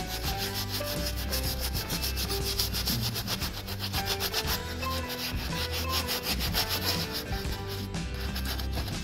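A stiff-bristled plastic scrub brush scrubbing a wet, soapy sneaker upper in rapid back-and-forth strokes, the bristles rasping against the fabric.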